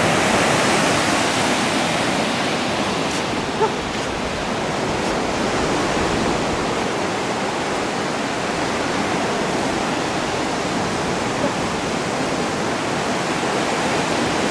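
Ocean surf breaking on the shore, a steady rushing noise.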